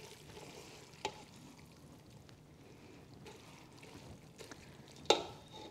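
Wooden spoon stirring dressing-soaked spaghetti in a stainless steel pot: faint wet squishing and slopping, with a small click about a second in and a louder sharp knock near the end.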